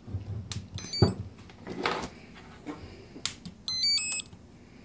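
A few sharp clicks, the loudest about a second in. Near the end comes a quick run of electronic beep tones stepping in pitch, played by a Skywalker 60 A brushless ESC through the windings of a Turnigy SK3 outrunner motor. These are the ESC's power-up tones.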